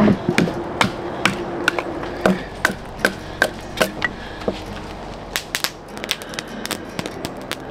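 Hatchet chopping kindling on a wooden block: sharp chops at about two to three a second for the first four and a half seconds, then a quicker run of lighter clicks and knocks near the end.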